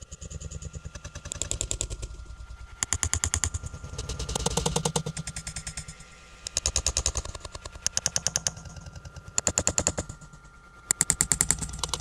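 Rapid rattling clatter in short bursts of fast, even clicks, each about a second long and coming every second or two, over a faint steady high hum.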